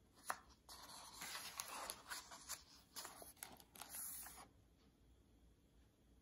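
A hardcover picture book's paper page being turned and smoothed flat by hand: a sharp tick, then paper rustling with a few crisp ticks, stopping about four and a half seconds in.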